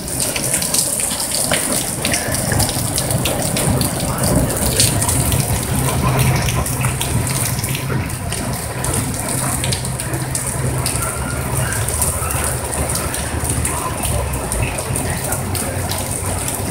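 Heavy rain and hail coming down hard: a steady rushing hiss with hailstones clattering throughout as many sharp ticks and knocks.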